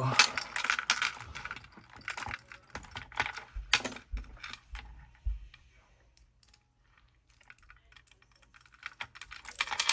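Metallic clicks and rattles as a just-picked Paclock 95G padlock and its picks are handled. A quiet gap of a few seconds in the middle, then a flurry of clicks near the end.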